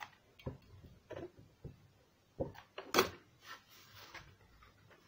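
Sheets of card and craft paper being handled against a cardboard box on a wooden table: a series of short knocks and rustles, the loudest about three seconds in.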